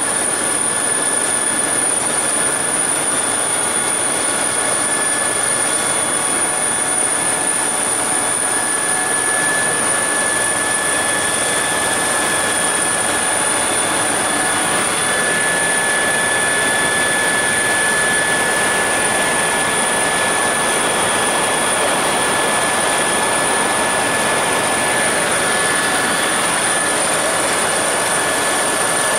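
Helicopter cabin noise in forward flight, heard from inside the cockpit: a dense, steady rushing noise from the rotor and turbine, with a steady high-pitched whine on top.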